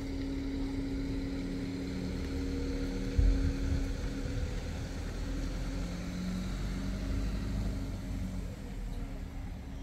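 A vehicle running steadily: a low drone with a steady hum, and a single low bump about three seconds in.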